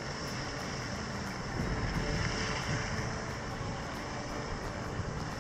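Wind buffeting the microphone: a steady rushing noise with an uneven low rumble that swells for a moment about two seconds in.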